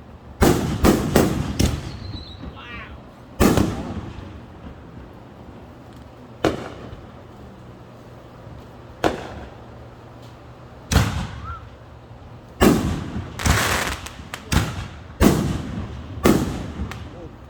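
Fireworks going off: about a dozen sharp bangs at irregular intervals, four in quick succession near the start and another close cluster about two-thirds of the way through, each trailing off in a short echo.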